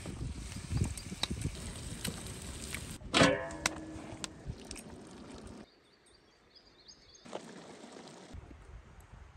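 Cooking at a large steel pot over a wood fire: soft thumps as chunks of meat go in, then a loud metallic clang with a short rattle and brief ring about three seconds in. Cuts break it into separate shots, with a quiet gap after about six seconds.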